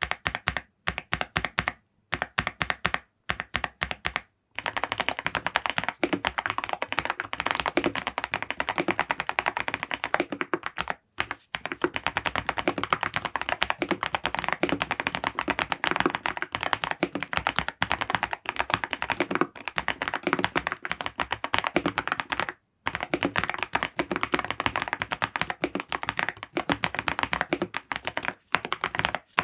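Typing on a Preflow Archon AK47 mechanical keyboard fitted with Hyacinth V1 switches. It starts with a few separate keystrokes, then fast continuous typing from about four seconds in, with a couple of brief pauses.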